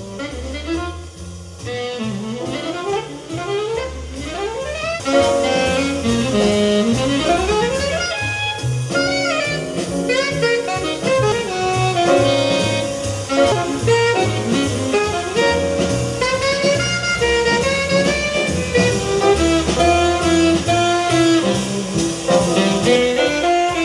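Jazz music led by a saxophone, played back through Kef loudspeakers in the room.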